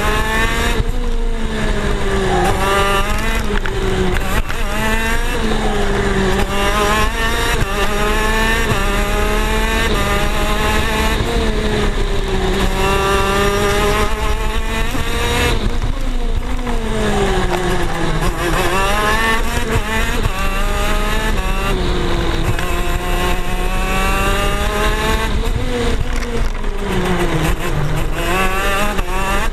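KZ shifter kart's 125cc two-stroke engine, heard from on board, revving hard through its gears and dropping off for corners, over and over: the pitch climbs in steps, then falls away before climbing again.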